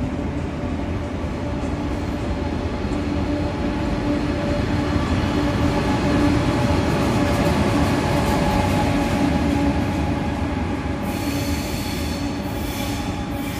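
Passenger train pulling out past a station platform: a continuous rumble of the cars and wheels rolling by, a little louder midway and easing as the train moves off, with a high-pitched wheel squeal coming in about eleven seconds in.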